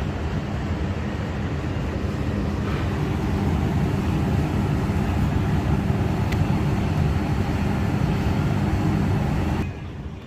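Steady low mechanical rumble, building slightly, that drops away sharply near the end.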